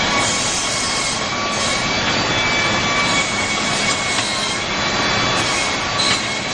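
Steady, loud machinery noise: an even rushing hiss with a few high whining tones held unchanged throughout.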